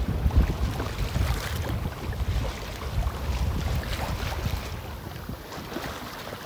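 Wind buffeting the microphone with a gusty low rumble, over the rush and splash of water along the hull of a sailboat moving through choppy water. The buffeting eases in the second half.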